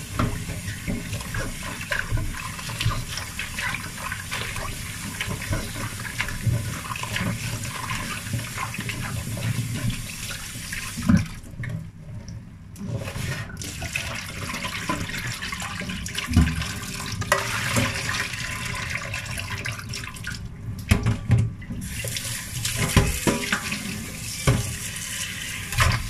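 Kitchen tap running and splashing into a stainless steel pot in a steel sink while hands rub and rinse the mushrooms in it. The flow drops out briefly twice, about halfway and again some eight seconds later, and a few sharp knocks stand out over the water.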